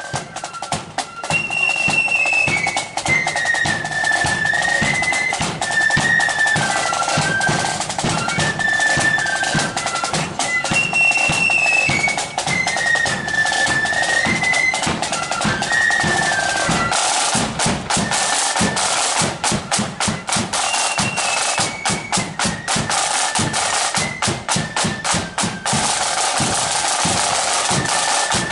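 Marching flute band playing a tune, high flutes over snare and bass drums. About two-thirds of the way through the flute melody fades back and the drums carry on with rolls, the flutes coming back only faintly.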